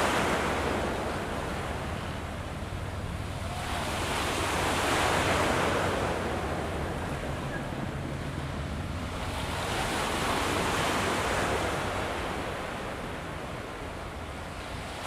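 Small waves washing against a rocky shore, the rush swelling and fading about every five seconds, with wind on the microphone.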